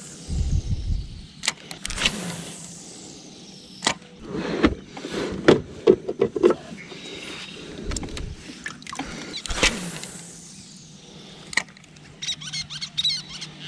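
Hard plastic clicks and knocks of kayak deck fittings and gear being handled, a separate sharp knock every second or two. A faint steady low hum comes in about eight seconds in, and there are small high squeaks near the end.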